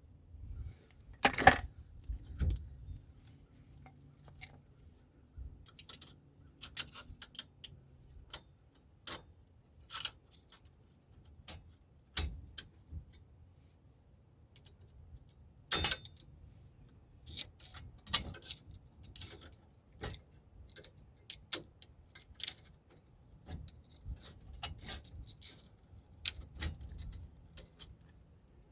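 Irregular sharp metallic clicks and clinks of tools and metal parts being handled, with no power tool running; the loudest click comes about a second and a half in.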